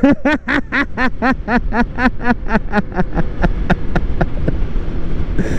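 A man laughing in a long run of rhythmic "ha-ha-ha" bursts, about four a second, that dies out about four seconds in, leaving steady riding and wind noise.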